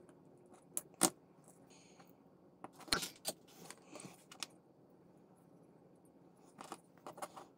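Small clicks and taps of a plastic model engine and a small hobby tool being handled: a sharp click about a second in, a cluster of taps around the middle, and a few more near the end.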